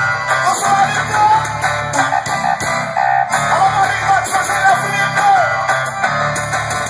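Guitar-led music with a pulsing bass line played loud through a car sound system.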